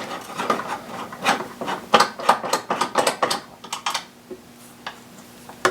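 Hand ratchet clicking and metal tool clinks as a 10 mm bolt is undone, in quick irregular bursts for the first three seconds or so, then dying down.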